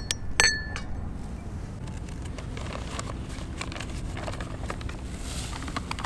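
A single sharp clink that rings briefly, about half a second in, then faint scattered crackles of a campfire over a low steady background.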